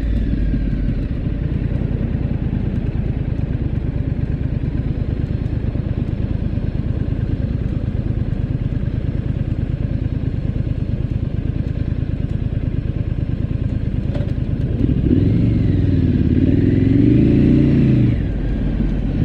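Triumph Scrambler 900's parallel-twin engine idling with a steady, fine pulse, then revving up and pulling away about three-quarters of the way in, its pitch rising and falling through the gears before easing off near the end.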